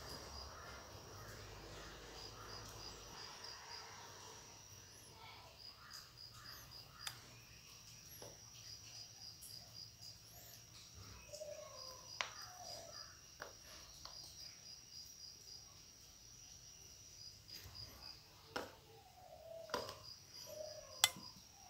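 Faint insect chirping: short trains of quick high pulses repeated every second or two over a steady high tone. Several sharp clicks come through it, mostly in the second half, as a bottle cap used as a biscuit cutter is pressed through the dough onto a steel plate.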